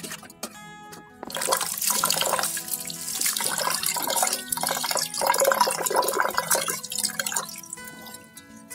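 Water splashing into a pot as rice is washed by hand, the grains swished and rubbed under the stream, starting about a second in and going on in uneven surges. Background music plays underneath.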